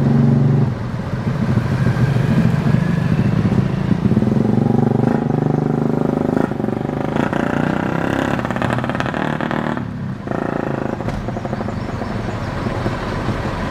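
Excavator's diesel engine running, loudest in the first few seconds, with a brief dip in the engine sound about ten seconds in.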